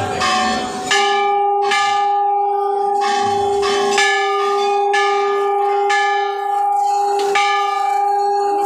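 Temple bell rung repeatedly during puja, struck about every three-quarters of a second, its steady ringing hum carrying on between strikes.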